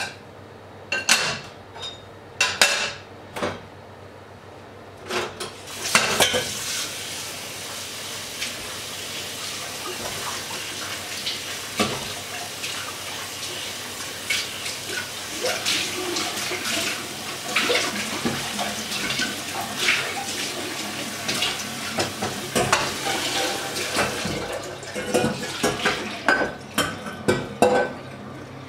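Pots, pans and cutlery clattering in a kitchen sink as they are washed, with a few sharp knocks at first and a tap running from about six seconds in.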